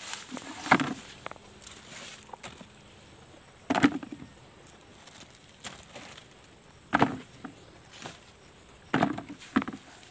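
Leaves and cucumber vines rustling and crackling in short bursts, five in all, a few seconds apart.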